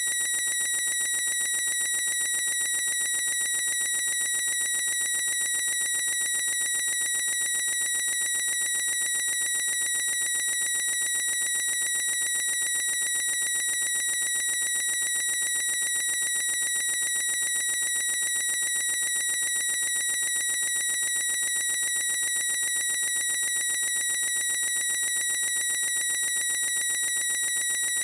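A boy's high-pitched squeal, looped into one unbroken, unchanging tone with bright overtones.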